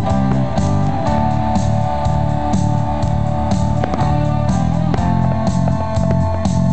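Band music with electric guitar and bass over a steady beat.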